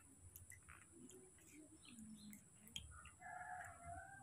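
Near silence with faint small clicks. About three seconds in, a faint, drawn-out animal call begins: one long held note.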